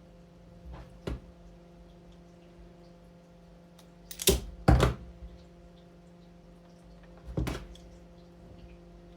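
Hand-squeezed insulation strippers clicking as they grip and strip the insulation from wire ends: small clicks about a second in, two loud snaps close together halfway through, and another near the end. A low steady hum runs underneath.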